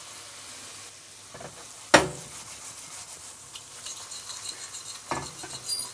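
Sliced mushrooms sizzling in a hot stainless-steel frying pan as they are stirred and scraped around, their juices starting to deglaze the browned bits on the pan's bottom. A single sharp clack about two seconds in is the loudest sound, with a few more knocks of the utensil near the end.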